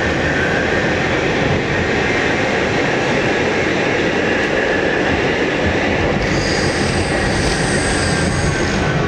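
R68 subway car running through a tunnel, heard from inside the car: a steady loud rumble of wheels on rail and motors. About six seconds in, a high-pitched squeal of several steady tones joins it and holds to near the end.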